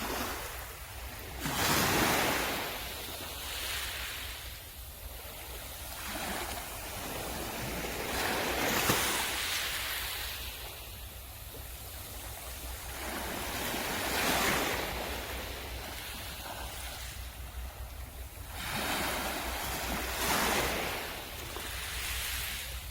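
Sea waves breaking and washing up a beach, each surge swelling and fading over a few seconds, with about four louder breakers.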